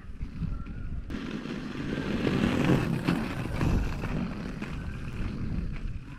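Wind buffeting the microphone over a rough rumble of movement on asphalt. The sound changes abruptly about a second in to a fuller, hissier rush.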